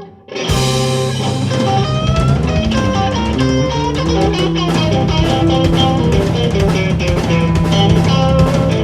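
Blues band playing live: electric guitar picking single-note lines over bass guitar and drums. The sound drops out briefly right at the start, then the band comes back in.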